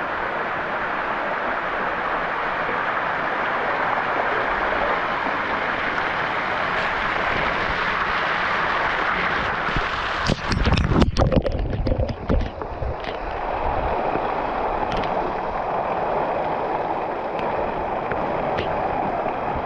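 Waterfall rushing in a steady roar of falling water, with wind buffeting the microphone in low bumps for a couple of seconds about halfway through.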